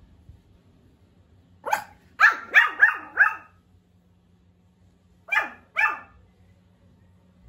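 Pomeranian puppy barking in short high yaps: one bark, then a quick run of four, then a pause and two more. These are the small, new barks of a puppy that has only just started to bark.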